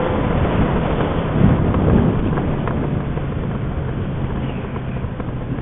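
Motorcycle engine running with its muffler removed, the open exhaust heard while riding, mixed with wind rush on the microphone. The engine eases off a little after about two seconds.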